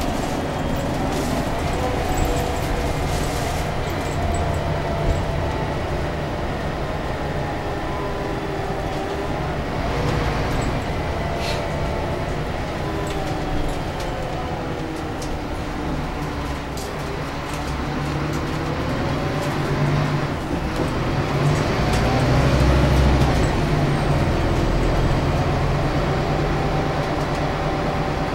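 Scania K360UA articulated bus under way, heard from inside the cabin: the diesel engine and ZF Ecolife automatic transmission whine over a steady rumble of road noise, with tones gliding up and down as speed and gears change. The drive grows louder about three quarters of the way through.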